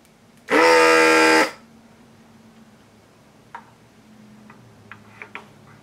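Electric vacuum desoldering gun's pump buzzing once for about a second as it sucks molten solder off a circuit-board joint to free a capacitor lead, followed by a few light clicks.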